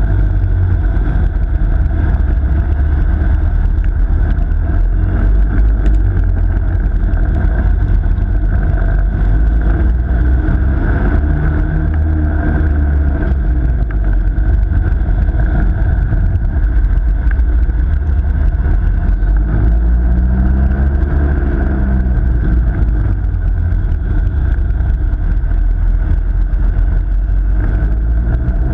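Ice kart driving laps on an ice rink, heard from a camera mounted on the kart: a steady, loud low rumble from the kart, with an engine note that rises and falls twice.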